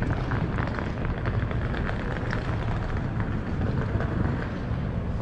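Outdoor city street noise: a steady low rumble of traffic and wind, with scattered light clicks.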